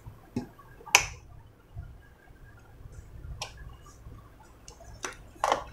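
A handful of short, sharp clicks and taps, about five, spread unevenly over a faint low hum.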